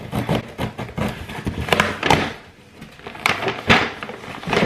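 Cardboard shipping box being opened by hand: scissors slicing the tape, the flaps pulled back, and paper packaging rustling as it is lifted out. Irregular scrapes and rustles, with the loudest bursts about two seconds in and again near the end.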